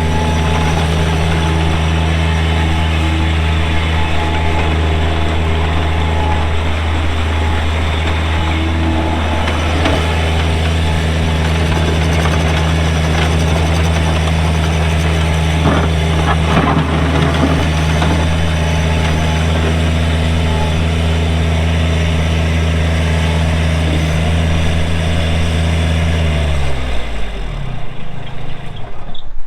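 Kubota diesel engine of a Bobcat MT85 stand-on skid steer running at a steady speed, with a few brief knocks midway. About 27 seconds in it is shut off and winds down, its pitch falling as it stops.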